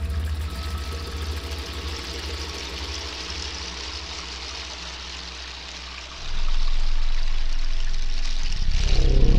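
Dark ambient drone music: low, sustained synthesizer drones under a steady hissing noise layer. About six seconds in, a deeper drone swells in and becomes much louder, and near the end a pulsing cluster of tones joins it.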